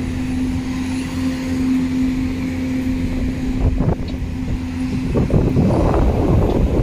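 Road traffic at a city street: a steady low hum, then a louder rumble from about five seconds in as a vehicle passes.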